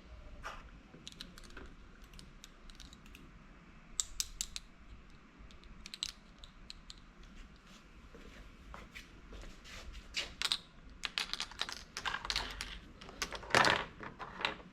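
Small plastic toy pieces being handled: irregular light clicks and taps, busier in the second half, with one louder knock near the end.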